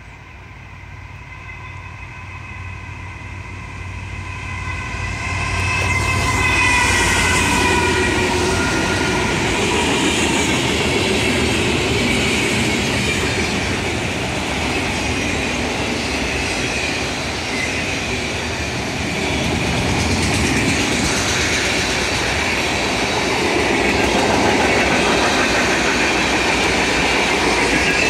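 Norfolk Southern freight train with a Tier 4 lead locomotive approaching at speed, its horn sounding as a chord of steady tones that drops in pitch as the locomotive passes about seven seconds in. After that comes the steady rumble and clatter of freight cars rolling by at speed.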